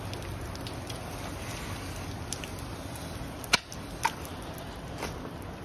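Steady hiss of water spraying down onto a rain jacket and climbing gear, with a couple of sharp clicks about three and a half and four seconds in as the powered rope ascender is handled.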